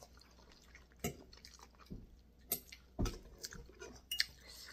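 Someone chewing a mouthful of glass noodles from boat noodle soup, just slurped up: a few short, wet mouth smacks and clicks at uneven intervals.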